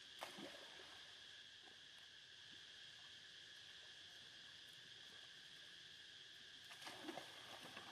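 Faint steady drone of insects, over which macaques swimming in a pool make small water splashes, one about a quarter second in and a short cluster near the end.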